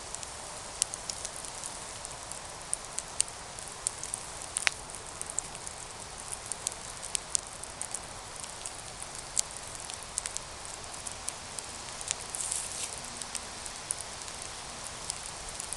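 Campfire burning, with a steady hiss and frequent sharp, irregular crackles and pops from the wood.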